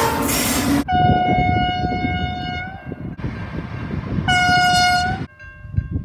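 XR-class diesel freight locomotive sounding its horn on one steady note: a long blast of about two seconds, then after a short gap a second blast of about a second, over the rumble of the moving train. The sound drops away abruptly near the end.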